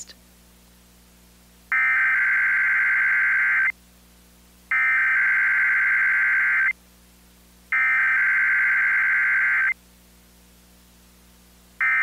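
Emergency Alert System SAME header: three bursts of digital data tones, each about two seconds long with a second's gap between them, encoding a Required Weekly Test. A fourth, much shorter burst starts right at the end.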